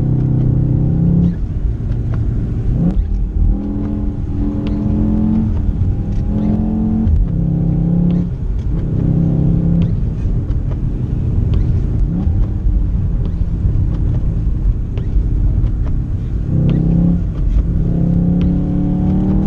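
Car engine revving up and dropping back several times during hard driving, over a steady low rumble.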